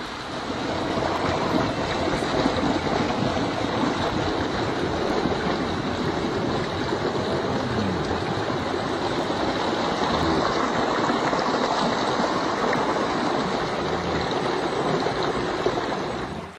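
Water of a shallow rocky stream flowing and splashing over small cascades, a steady wash of water noise.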